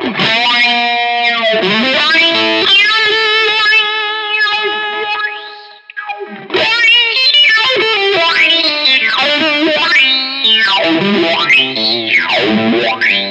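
Electric guitar played through an All Pedal Macrodose envelope filter with overdrive: the picked notes sweep up and back down in tone like an auto-wah, with a short break about six seconds in.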